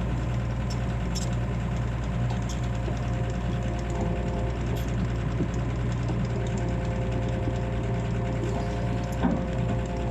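Excavator's diesel engine running steadily, with a single knock about nine seconds in.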